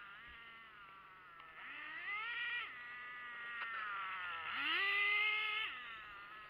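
1/5-scale RC racing motorcycles passing, their small motors rising in pitch as they accelerate and falling as they slow. There are two main surges, one about two seconds in and a louder one about five seconds in that holds briefly before dropping away.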